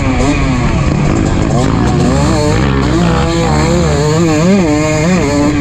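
2023 KTM 250 SX's single-cylinder two-stroke engine revving hard while being ridden, its pitch rising and falling quickly again and again as the throttle is worked.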